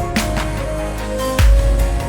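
Electronic background music with held synth notes and percussion, and a heavy deep bass hit about one and a half seconds in.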